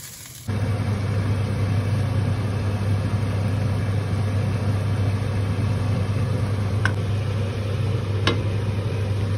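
Steady low motor hum, like a kitchen appliance running, with two light clicks about a second and a half apart near the end.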